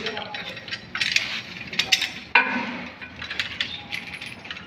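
Loose metal bolts, nuts and hand tools clinking and clicking as tiller parts are handled and fitted, at irregular intervals, with one sharper knock about two and a half seconds in.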